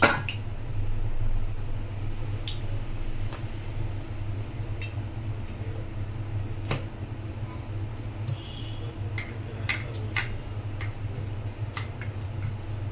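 Wooden rolling pin working a sheet of stiff dough on a stone board, with scattered light clicks and jingles of bangles over a steady low hum.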